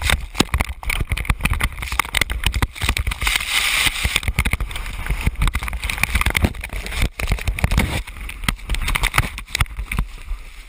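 A skier tumbling down a steep snow slope: loud rushing of snow and wind buffeting on a body-worn camera's microphone, with many knocks and scrapes as skis and body strike the snow.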